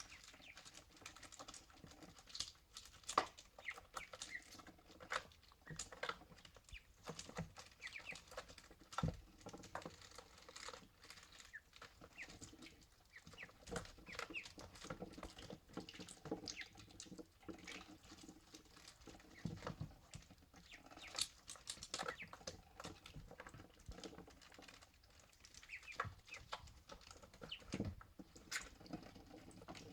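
Ducklings drinking, their bills making many small irregular clicks and pats, with scattered soft peeps. Now and then a duckling gives a short sneeze to clear water from its nostrils.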